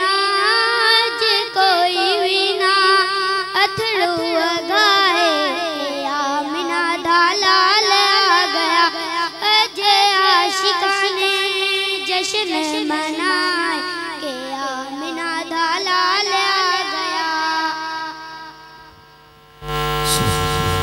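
A boy singing a naat unaccompanied into a microphone, his voice moving in long, wavering, ornamented lines over a faint steady hum. The singing fades out near the end, and a loud steady buzz cuts in suddenly.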